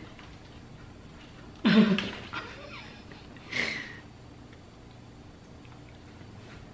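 Two short bursts of laughter, one about two seconds in and a shorter, weaker one at about three and a half seconds, with low room tone between them.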